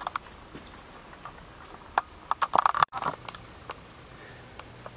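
Scattered sharp clicks and knocks on a quiet background, with a quick cluster of them around two and a half seconds in. The sound drops out for an instant just before three seconds.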